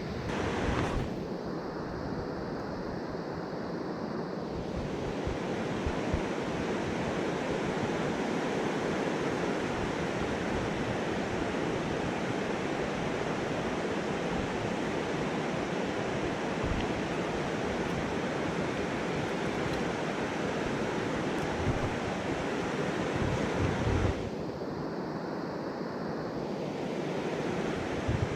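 Steady rush of flowing mountain-stream water, with low wind rumble on the microphone. The rush turns duller for a few seconds twice, about a second in and again near the end.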